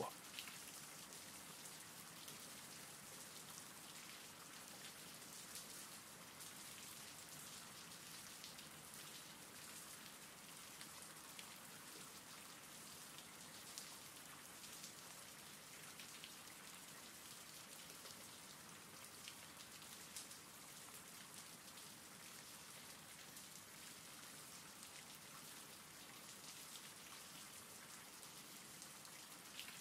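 Faint, steady rain: a soft hiss of falling rain with scattered light drop ticks.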